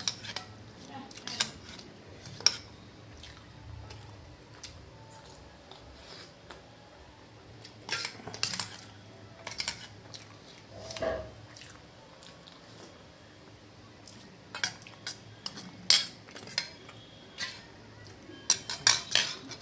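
Stainless-steel spoon clinking and scraping against steel bowls of ghugni and idli, in scattered sharp taps that bunch into clusters about eight seconds in and again through the last few seconds.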